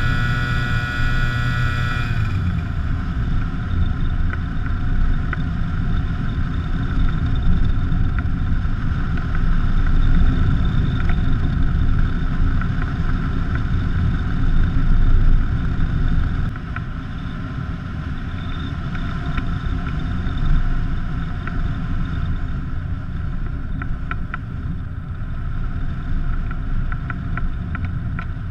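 The small engine of a foot-launched powered hang glider running, then cutting out abruptly about two seconds in: a spark plug lead has come off. After that there is only wind rushing loudly over the microphone as it glides, easing a little past the halfway point.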